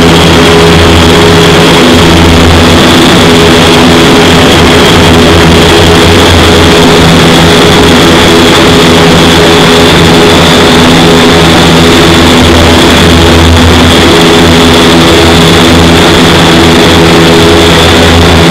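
Vertical wind tunnel running at flight speed: a loud, steady rush of air through the flight chamber with the even hum of its fans, several steady tones held under the wind noise.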